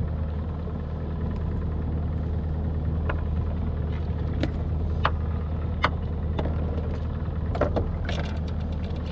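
Evinrude 115 outboard motor idling steadily with a low drone, with a few short sharp clicks and knocks from handling tackle, most of them near the end.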